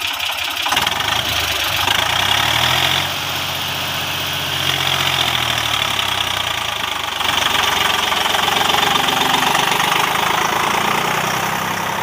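Diesel farm tractor engine under load, pulling a trailer up a muddy slope. The engine note rises and falls with the throttle and is loudest about a second in and again from about seven seconds.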